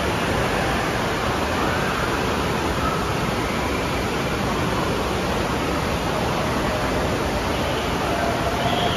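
Water rushing out of a tube water slide's exit and churning in the splash-down runout pool, a steady, unbroken rush.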